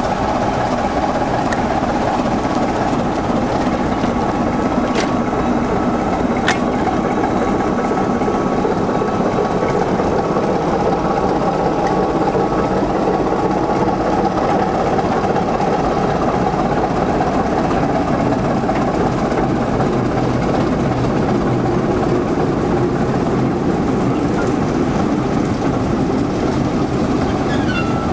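BR Class 25 diesel-electric locomotive's six-cylinder Sulzer engine idling, a loud, steady drone that holds unchanged throughout.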